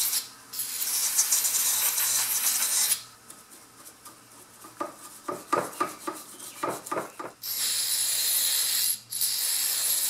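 Aerosol electrical contact cleaner spraying into a mower's fuse box in long hissing bursts for the first three seconds and again in the last three, with a short break just after nine seconds. Between the sprays, a small brush scrubs the fuse sockets in a run of quick scratchy strokes.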